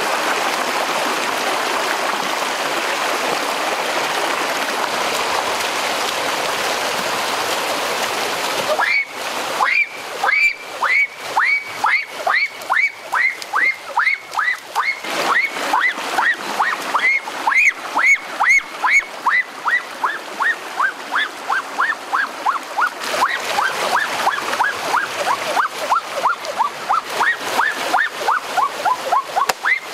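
Stream water rushing over rocks at a small waterfall. About nine seconds in, an animal's repeated chirping call starts over the water and keeps on: short, high calls about two a second, coming quicker and slowly dropping in pitch toward the end.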